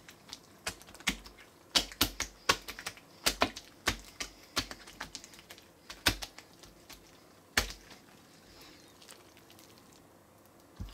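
Clear water slime full of Orbeez water beads being squished and slid around by hand on a tabletop: irregular sticky pops and clicks, several a second at times, thinning out after about eight seconds.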